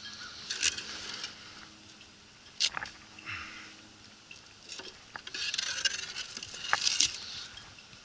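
Rusty metal frame, caught on a fishing magnet, knocking and scraping against a concrete dock edge as it is hauled up out of the water by its rope. There are a few sharp knocks and a longer run of scraping and rustling near the end as it comes up onto the concrete.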